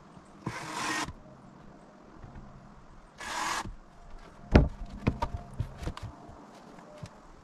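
A steel tape measure's blade rattles out and back twice, each a short zipping rasp. A few seconds in comes one loud knock, followed by a run of lighter knocks and clicks as the rough-sawn siding boards are handled against the wall.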